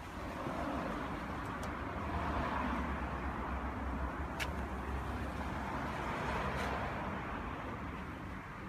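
Hyundai Santa Fe's 2.0 CRDi four-cylinder turbodiesel idling steadily, with one sharp click about four and a half seconds in.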